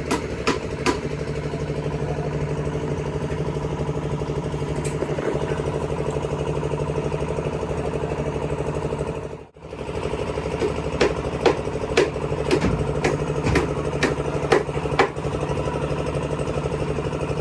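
Concrete mixer's engine running steadily at a slab pour, with sharp metal clanks over it, more of them in the second half. The sound drops out briefly about halfway.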